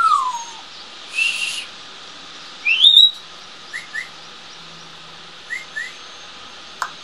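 African grey parrot whistling and calling: a falling whistle at the start, a short harsh call about a second later, a rising whistle near the middle, then two pairs of short chirps. A few sharp clicks near the end.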